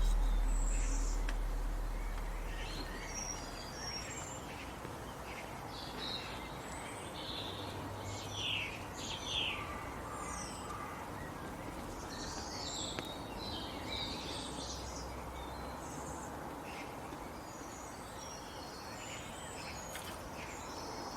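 Birds chirping and calling, many short high chirps and trills scattered over a steady hiss of outdoor ambience. A low rumble fades out over the first few seconds.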